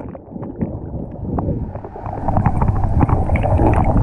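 Underwater sound from an action camera held beneath the surface of pool water: a muffled, churning rush of moving water with many small bubbles ticking and popping.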